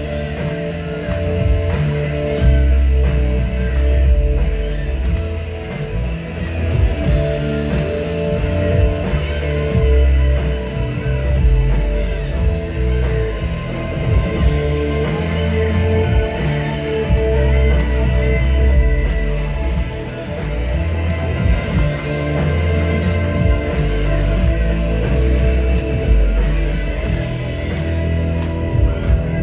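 Music with a steady beat, held tones and a pulsing bass line.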